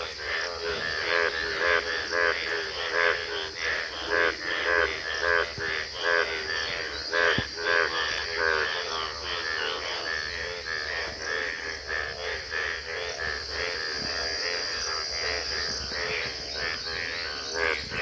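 A chorus of frogs calling, many trilling croaks overlapping in quick, uneven succession. A steady high-pitched drone runs underneath.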